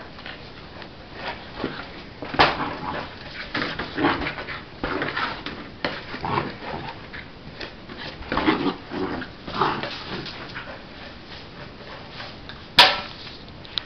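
A Blue Heeler–Border Collie puppy playing with a huge tennis ball, whimpering and making small play noises, with irregular bumps and scuffs as it pushes the ball around the floor. There is a sharp knock near the end.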